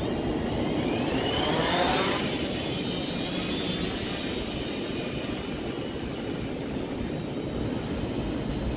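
Hexacopter drone's six electric motors and propellers spinning up with a rising whine over the first two seconds as it lifts off, then holding a steady high whine as it climbs away.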